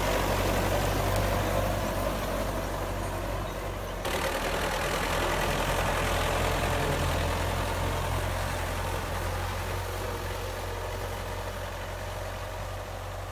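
Belarus 820 tractor's four-cylinder diesel engine running steadily under load as it pulls a disc plough through the soil. The sound shifts abruptly about four seconds in and fades slowly toward the end as the tractor moves away.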